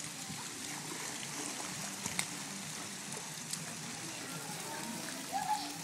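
Steady splashing and running water in a backyard swimming pool as swimmers kick and paddle floats along, with a faint voice near the end.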